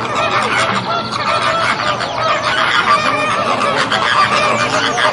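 A flock of flamingos calling: a dense, continuous chorus of many overlapping calls.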